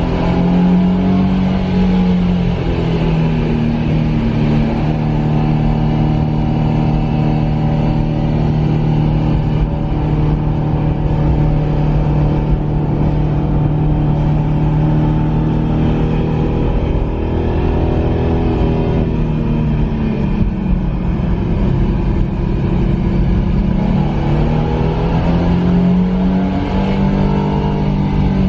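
Nissan VR30DDTT 3.0-litre twin-turbo V6 of a Skyline 400R running under steady load, unaltered by active sound enhancement. Its pitch dips briefly a couple of seconds in, falls away about two-thirds of the way through, and rises again near the end.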